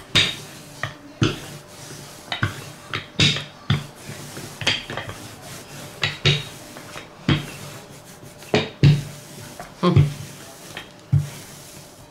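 Wooden rolling pin rolling out dough on a table, knocking against the tabletop about once a second as it is pushed back and forth, with a soft rubbing between the knocks.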